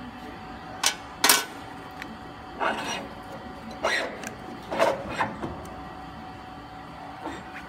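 Metal parts of a paper baking-cup forming machine being handled while its mold is changed: two sharp clinks about a second in, then three short scraping, rattling handlings of the mold and gear. A steady hum runs underneath.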